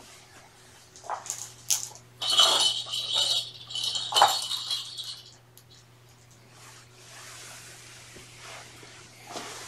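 Plastic ball-track cat toy being picked up and carried, its balls rattling and clinking around the track for about three seconds, with a sharp knock in the middle.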